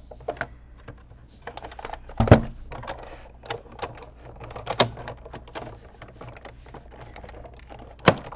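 Big Shot die-cutting machine being hand-cranked, rolling a magnetic platform with a thin metal die and cardstock through its rollers: a run of irregular clicks and clunks, with a heavy thump a little over two seconds in, another knock near five seconds and a sharp one near the end.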